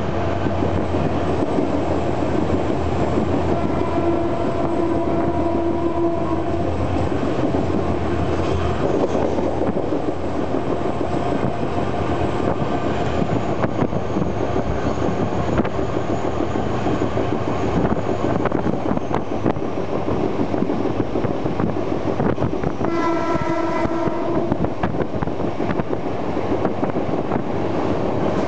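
GM diesel locomotive hauling a passenger train at speed, its engine running under the clatter of wheels on the rails. Its horn sounds twice: a chord held for about two seconds around four seconds in, and a shorter blast later on.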